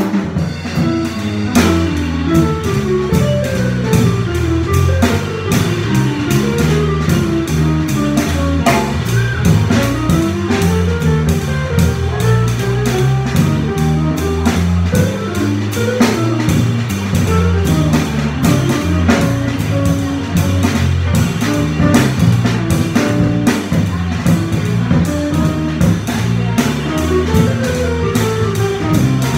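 Jazz trio of electric guitar, bass and drum kit playing a blues, with the guitar's running single-note lines rising and falling over the bass and the drummer's cymbals.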